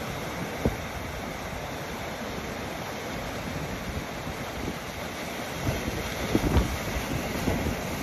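Rough sea waves washing and breaking over a rocky shore in strong wind, a steady rush with wind buffeting the microphone. A few low thumps stand out, most of them about six to seven seconds in.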